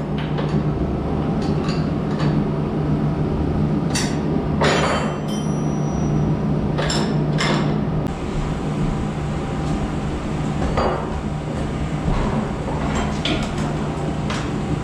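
Hand tools clinking and knocking against the steel steering parts of a Polaris 525 ATV as the tie rod is taken off. There are irregular sharp metallic taps, a few seconds apart, over a steady low hum.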